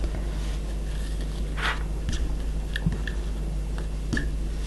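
Faint rustling and small ticks of hands handling and tightening knotting cord, over a steady low hum.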